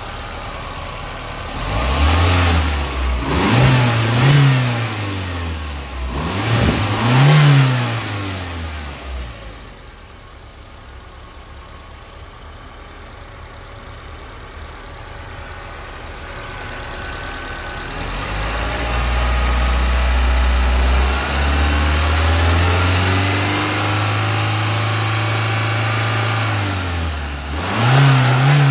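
1990 Toyota Sera's 16-valve EFI inline-four (the 1.5-litre 5E-FHE), heard at the open engine bay, revved in several quick throttle blips, then settling to idle. About eighteen seconds in, the revs are raised and held for about nine seconds, then drop, with one more quick blip near the end.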